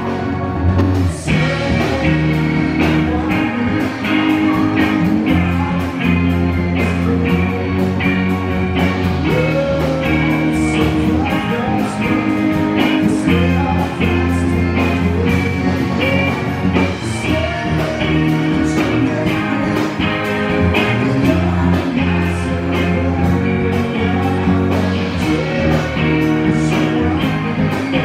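Live rock band playing electric guitars over a steady drum beat, with singing.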